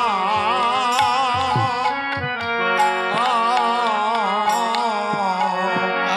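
Bengali kirtan music: a singer's ornamented, wavering melody over steady harmonium tones and low, pitch-bending strokes on a khol barrel drum.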